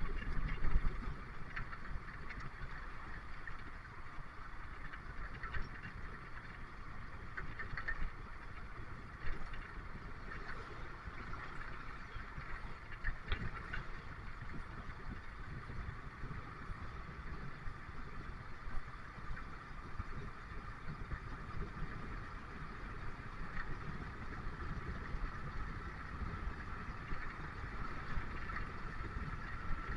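A bus under way, heard from inside: a steady engine drone mixed with road noise.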